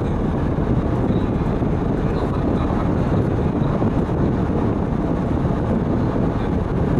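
Steady road and engine noise heard inside a transit bus cruising at highway speed.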